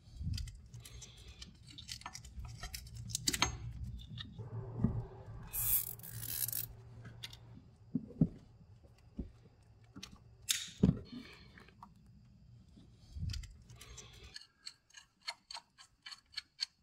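Hands working on parts in a car's engine bay: scattered small clicks and knocks, with a brief rustling hiss about six seconds in. A low steady hum stops about fourteen seconds in, and a run of evenly spaced clicks, about four a second, follows to the end.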